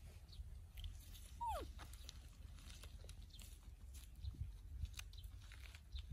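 Faint rustling and small crackles of corn husks as a baby monkey tears and bites at an ear of corn, with a single short call that falls in pitch about one and a half seconds in.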